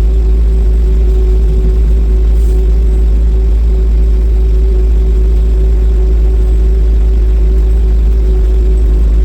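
New Holland L225 skid loader engine running steadily while it warms up just after starting, heard as a loud, even low drone with a steady whine above it.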